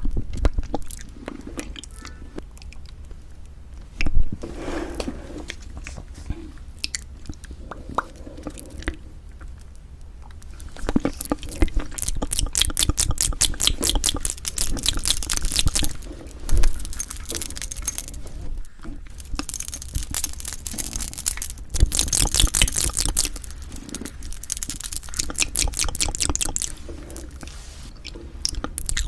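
A person chewing a meal of beef rib meat and bibim-myeon noodles close to the microphone. Two long stretches of rapid, fine crunching come in the middle.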